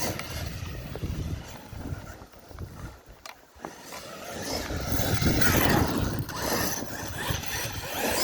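Arrma Krajave 1/8-scale RC truck with a Kraton 8S brushless motor driving around on its first test run, its tyres and drivetrain running in uneven bursts. The sound eases off about three seconds in and picks up again around five to six seconds.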